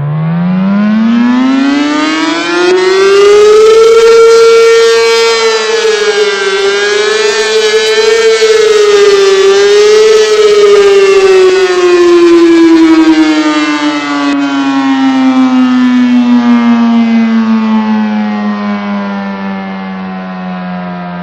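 ACA P-15 siren sounding a test cycle: it winds up from a low growl to a high steady tone in about four seconds, holds there with a few slight wavers, then slowly winds down, still sounding at the end.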